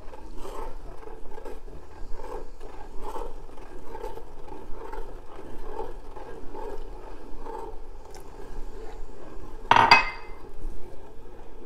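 Spoon stirring hot milk as it curdles in a stainless-steel pot: a rhythmic sloshing and scraping of about two strokes a second as the milk separates into curds after vinegar has been added, with one sharper knock of the spoon against the pot near the end.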